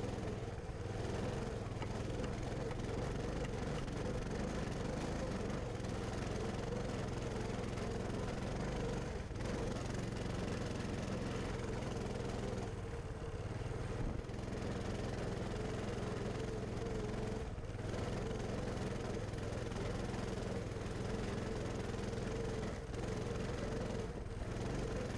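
Coleman Mini Bike 200's small single-cylinder four-stroke engine running steadily while the bike is ridden, at a fairly constant throttle.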